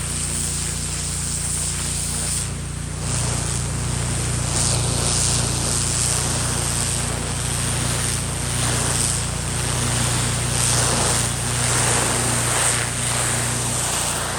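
Pressure washer running steadily, its engine humming under the loud hiss of a high-pressure water jet spraying concrete as the driveway is rinsed down.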